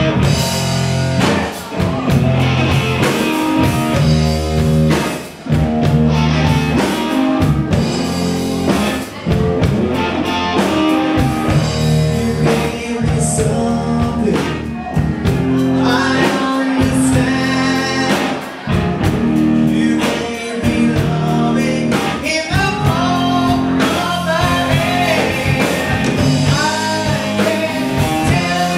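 Live rock band playing, with electric guitars and a drum kit and a voice singing over them.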